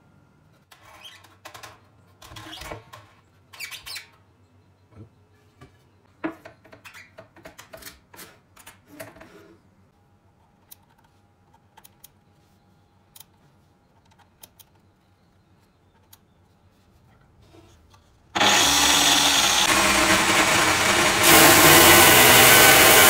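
Scattered clicks and knocks of parts being handled, then about eighteen seconds in an angle grinder driving a homemade sanding drum switches on and runs loud and steady. About three seconds later it gets louder as a wooden board is pressed against the drum and sanded.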